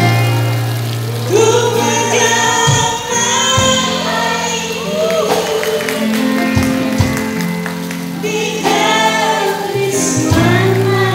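A woman singing live into a microphone, backed by a band, with sustained low notes held under her voice.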